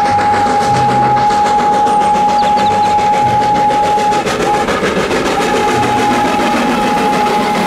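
Steam locomotive running with a coach train, its whistle holding one long steady note that breaks off briefly a little past the middle, over the noise of the train.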